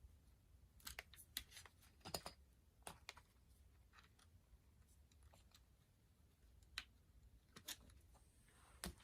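Faint, scattered clicks and taps of a USB cable and plastic connectors being handled and plugged in, over near silence.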